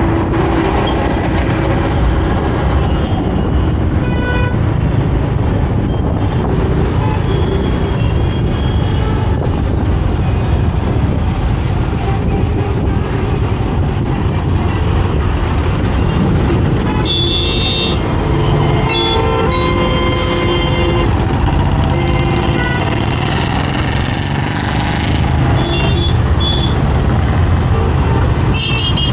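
Riding a motorcycle through city traffic: a steady, loud low rumble of engine and road noise, with other vehicles' horns tooting several times around the middle and near the end.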